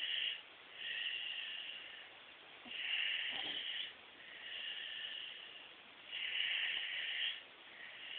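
Snoring: slow, noisy sleeping breaths in a steady rhythm, a louder hissing breath about every three and a half seconds alternating with a softer one, with a short rattle in the middle of the loud breath near the middle. The sound is thin, as recorded on a cellphone.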